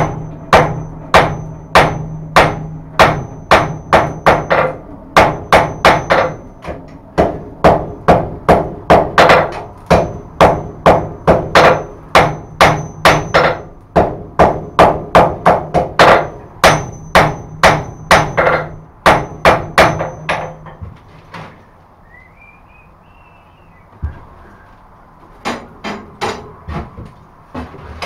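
Hand hammer striking a white-hot forge-welded billet of farrier's rasp, high-carbon wagon-tire steel and wrought iron on the anvil: steady blows about two a second for some twenty seconds, with the anvil ringing between them, setting the weld during a welding heat. After that comes a pause with a few lighter taps near the end.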